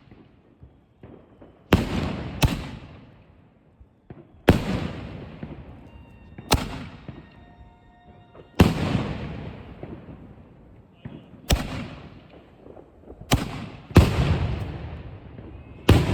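Master 8 canister firework shells firing in sequence off a slow time fuse: a string of loud, sharp bangs from lift charges and shell bursts, about one every one to two seconds, each trailing off in a fading rumble.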